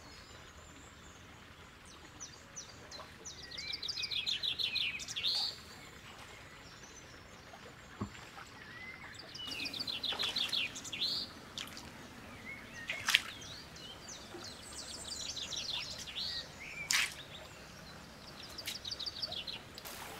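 Wild birds singing in woodland, with three bouts of rapid high trilled chirps, each ending in a rising note, over a faint steady outdoor background. A few sharp clicks stand out in between.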